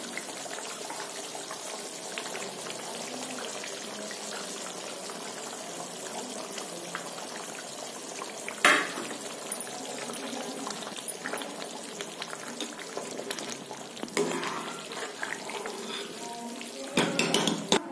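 Matar paneer gravy simmering in a kadhai on a gas burner, a steady hiss with bubbling. About halfway through there is a single sharp knock. Near the end a ladle stirs and scrapes through the thick gravy.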